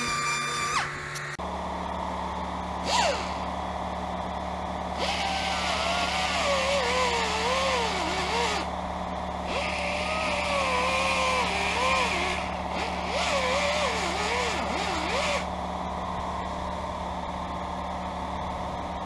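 Small pneumatic right-angle grinder with a sanding disc grinding out a door ding on a steel truck panel, its whine wavering in pitch as it is pressed into the dent. Stretches of hiss come and go over a steady low hum.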